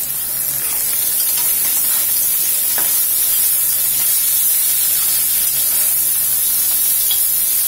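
Sliced bitter gourd, potato and onion sizzling in hot oil in a karahi, with the scrape of a spatula stirring through the pan.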